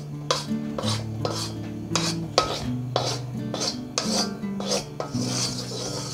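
Wooden spatula scraping and rubbing around the inside of a metal wok, spreading oil up the sides, in repeated strokes about two to three a second, over soft background music.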